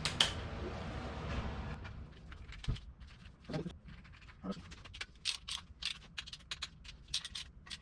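Ratcheting torque wrench clicking in short quick runs as the main cap bolts of a 6.2 LS block are run down on the first 15 ft-lb pass, with a single knock near the middle.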